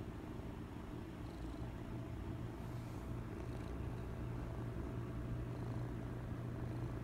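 Two-month-old Scottish Fold kitten purring steadily, a low continuous rumble.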